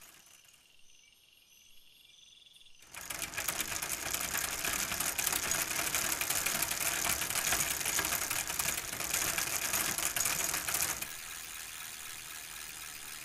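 Cycle rickshaw rattling along as it is pedalled, a loud fast mechanical clatter that comes in about three seconds in and drops away near the end. Faint high chirping of night insects is heard before the clatter, and a quieter steady insect and frog chorus is left after it.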